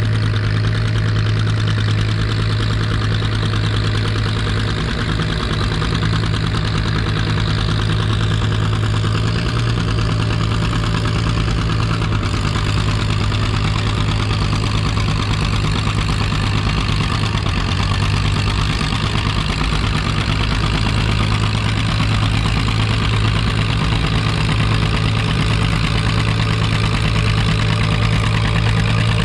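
Antique farm tractor engine idling steadily.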